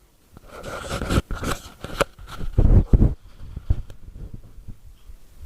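Spoon stirring and scraping a thick, doughy mix of milk powder, flour and water in a small container, with irregular scrapes and knocks. The loudest knocks come about halfway through.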